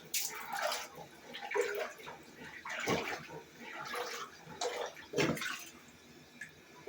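Water running and splashing into a bathroom fixture that is not draining, a sign the clog sits further down in the main drain line.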